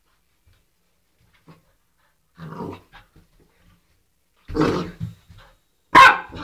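Old English Sheepdog puppy giving three short growling barks about a second and a half apart, the last one the loudest.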